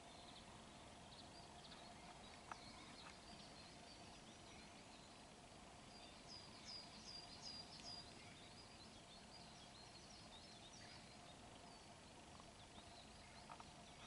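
Faint songbird chirps and calls, with a quick run of about five repeated notes a little past the middle, over a faint steady hum.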